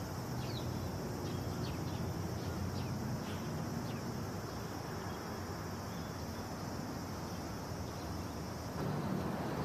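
Outdoor ambience: a steady high insect drone with a few short high chirps over a low background rumble. Near the end the drone stops and a different background takes over.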